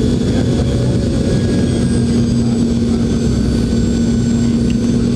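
Cabin noise of a Boeing 717-200 in descent on approach, heard from the seat beside its rear-mounted Rolls-Royce BR715 turbofan: a loud, steady low roar with a constant hum running through it.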